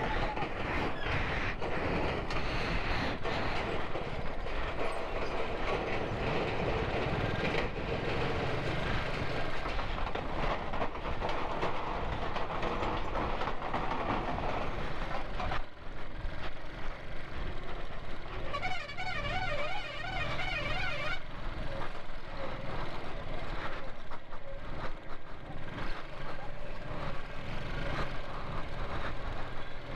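Heavily loaded motorcycle ridden over a rough, stony mountain road: engine and road noise with frequent rattles and knocks. About two-thirds of the way in, a warbling tone sounds for about two seconds.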